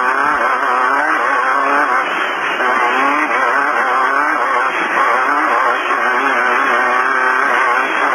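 VW Beetle-based desert race car's engine running hard under way, its pitch rising and falling constantly as the throttle is worked over rough ground. It is heard thin and narrow through the in-car intercom microphone.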